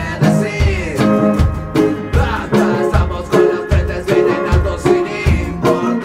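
Small rockabilly band playing live, picked up by the camera's own microphone: a strummed acoustic guitar and an electric guitar over a steady bass-drum beat, with a sung vocal.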